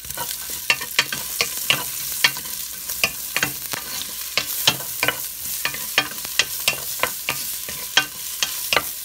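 Sliced red onions sizzling in hot oil in a stainless steel pot, with a utensil clicking and scraping against the pot about three times a second as they are stirred.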